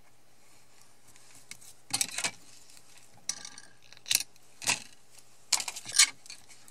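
Small crafting handling noises: a roll of double-sided tape and card being picked up and set down on a cutting mat, giving several short clicks and rustles. They start about two seconds in.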